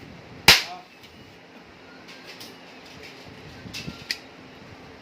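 Toy matchstick gun firing once with a sharp crack about half a second in, followed near the end by two lighter clicks.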